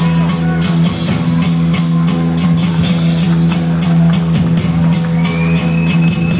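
Live rock band playing an instrumental passage between sung lines: a loud, droning low note held under a steady beat of high strokes, about four a second.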